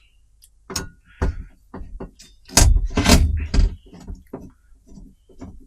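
Clicks and knocks of TV parts being handled during disassembly, with a louder scraping clatter about two and a half seconds in that lasts around a second.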